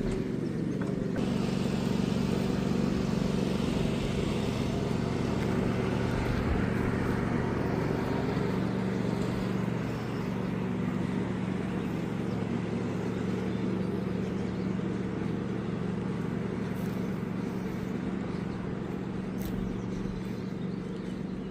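An engine running steadily: a low, even hum with a rushing noise over it, a little louder for the first several seconds.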